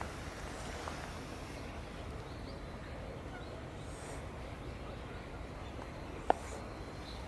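Steady low outdoor background noise with a few faint, short high chirps, and one sharp click about six seconds in.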